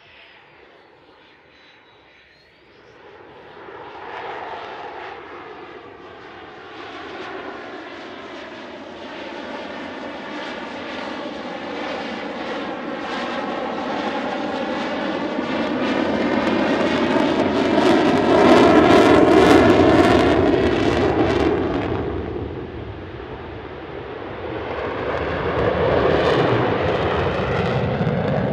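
Belgian Air Force F-16 Fighting Falcon's F100 turbofan engine passing overhead. The rushing jet noise builds from faint to loud over about fifteen seconds, with a tone that sweeps as the jet goes by. It eases off briefly, then swells again near the end as the fighter climbs away on afterburner.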